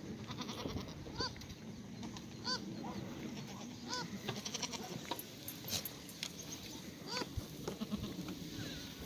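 Black goats bleating: a string of short, rising-then-falling calls every second or so, with faint high ticks between them.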